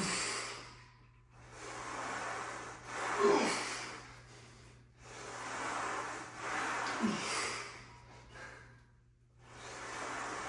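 A man breathing hard and forcefully through repeated heavy presses: long loud breaths about every three and a half seconds, with a short strained grunt twice.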